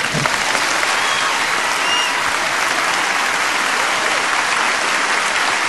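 Large audience applauding steadily, with a couple of faint short whistles about one and two seconds in.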